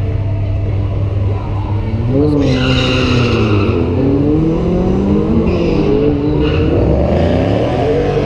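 Drag-race car engines idling, then from about two seconds in revving up and down, several engines at once with pitches rising and falling. Bursts of tyre squeal from a burnout come in over them.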